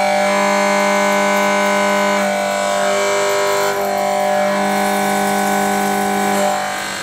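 CNC milling cutter with indexable inserts machining a metal block: a steady, pitched machining whine made of several tones held together, its upper tones shifting a few times.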